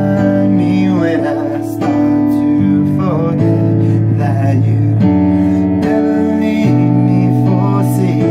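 A man singing over sustained instrumental chords that change every second or so.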